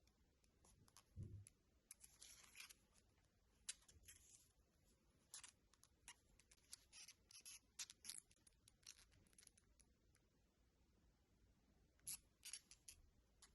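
Very faint handling noises: scattered small clicks and rustles, with one soft low thud about a second in, as a watch and its packaging are handled.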